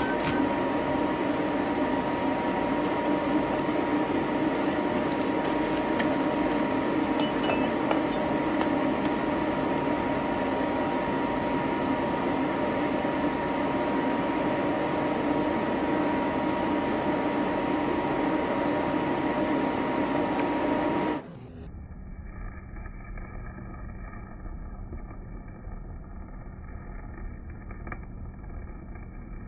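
Rotary DC welding machine running with a steady hum during stick welding with a basic electrode. About 21 seconds in the sound drops abruptly to a quieter, muffled low rumble: the slowed-down audio of slow-motion arc welding.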